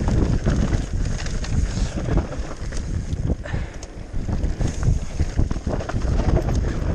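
Wind rushing over the microphone of a mountain bike descending a trail, with heavy rumble from the tyres and many quick rattles and knocks from the bike over bumps.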